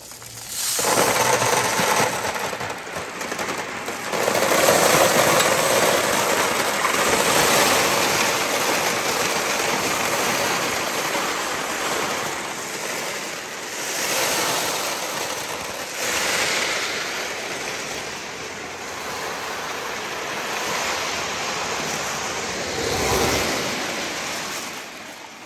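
A great mass of glass marbles pouring and rolling down a water-covered slide in a dense, continuous clatter mixed with running water. It starts about a second in, swells and dips, and thins out near the end.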